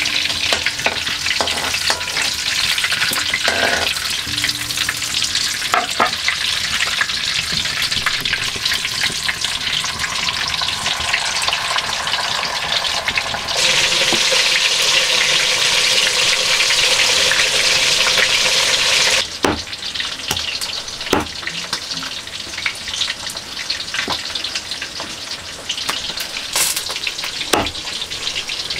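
Pieces of goonch catfish frying in hot oil in an iron wok: a steady sizzle with some stirring, louder in the middle, then quieter with a few sharp knocks in the later part.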